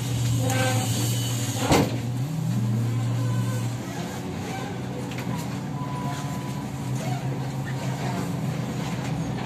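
Kyiv-12.03 trolleybus running, heard from inside the cabin: a steady electric hum for the first few seconds, broken by one sharp knock about two seconds in and a short rising whine just after, then an even rumble of the moving bus.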